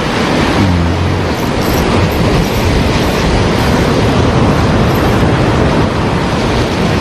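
Large sea waves breaking against the shore: a loud, steady roar of surf.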